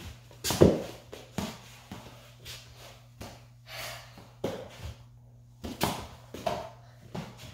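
Irregular knocks and thuds of a small ball being kicked and bouncing on a laminate floor, mixed with footsteps, the loudest knock about half a second in. A steady low hum runs underneath.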